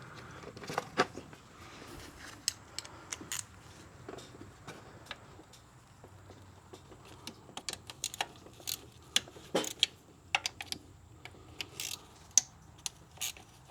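Scattered light clicks and taps of hand tools against metal parts, irregular, with a denser run of clicks near the end.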